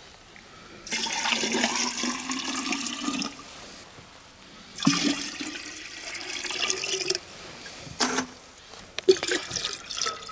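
Water poured from a glass jug into a 5-litre ribbed glass jar, in two long pours with the pitch rising as the jar fills, then a couple of short splashes near the end.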